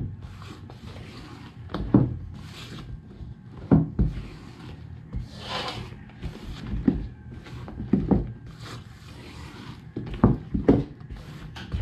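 A spatula folding whipped egg whites into cake batter in a large stainless-steel bowl. Soft swishing of the batter is broken by irregular knocks of the spatula against the metal bowl.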